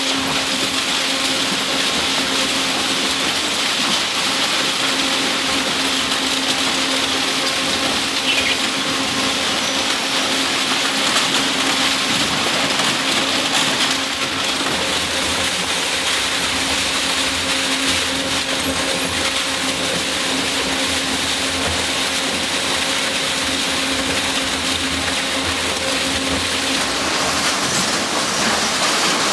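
Industrial shredder running, its rotary cutters tearing through a hopper load of scrap sheet metal and panels, with a steady motor hum under the noise of the metal being torn and rattled.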